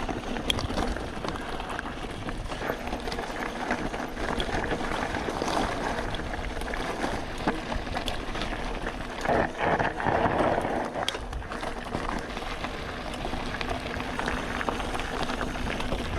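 Mountain bike descending a dirt and gravel trail at speed: tyres crunching over loose ground with a dense run of small knocks and rattles from the bike over bumps, and wind rushing on the helmet camera's microphone.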